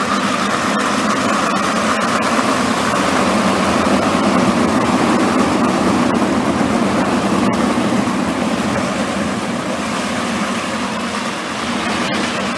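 A pack of 360 sprint cars' V8 engines running together as the field circles the dirt oval, a loud continuous drone that swells as the cars pass close, a few seconds in, then eases slightly.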